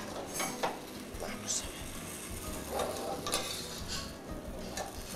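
Metal ladle scraping and knocking against stainless-steel stock pots as mushroom stew is ladled from one pot into another, several light clinks and scrapes. Under them is a steady hiss of the pots simmering on the gas range.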